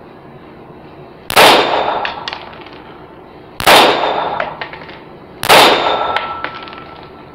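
Semi-automatic pistol firing three aimed shots about two seconds apart. Each shot is very loud and rings out with a long echo off the range walls, followed by small metallic clicks.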